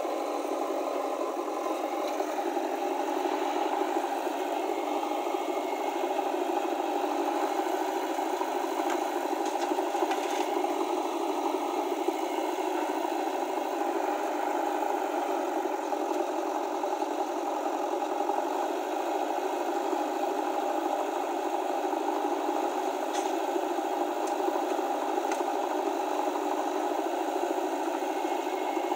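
A motor running steadily: a continuous even drone with a light rattle, holding the same pitch throughout.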